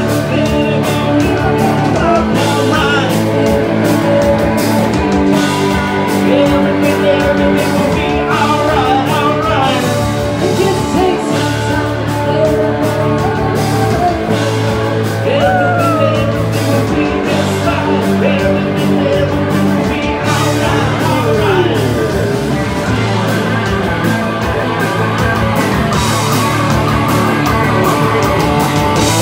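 Live rock band playing with electric guitars, and a woman singing lead into a microphone.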